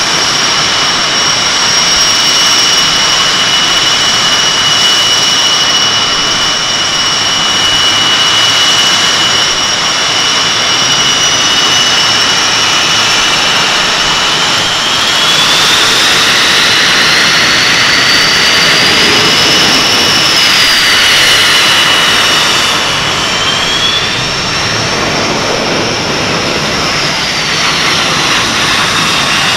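Twin jet engines of Blue Angels F/A-18 Hornets running at low taxi power: a loud, steady high whine over a rushing noise. Around the middle, a further engine whine rises and then falls in pitch, and another falls near the end as the jets move.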